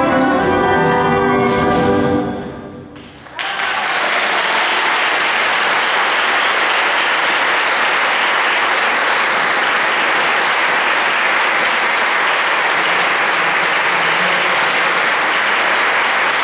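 A youth wind band of brass and saxophones ends its piece on a held final chord that cuts off about two seconds in and dies away in the church's echo; a moment later the audience breaks into steady applause that goes on to the end.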